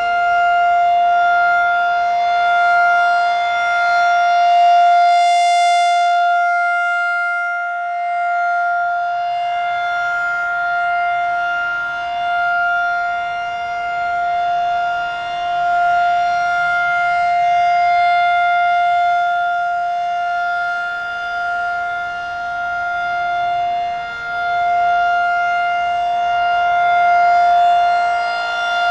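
Federal Signal 2001-SRN rotating outdoor warning siren sounding a steady alert tone, holding one pitch throughout. Its loudness swells and fades every several seconds as the siren head rotates.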